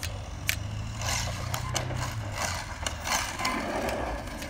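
Arrma Outcast 6S RC truck's brushless motor and drivetrain running on asphalt in short throttle surges, with a few sharp clicks. The owner traces the noise to a broken planetary gear in the center differential.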